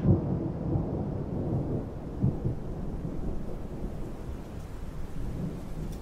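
Wind buffeting the microphone: a low, uneven rumble with no pitch, swelling at the start and again about two seconds in.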